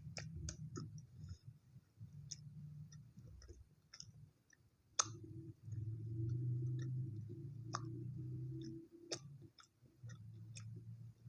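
Close-up chewing of chocolate toasted bread, with many small irregular mouth clicks and smacks and a steadier low mouth sound for a few seconds in the middle.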